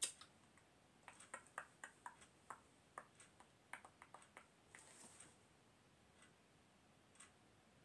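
Near silence broken by a string of faint, light clicks that come at an irregular pace, from about one second in to about five seconds in.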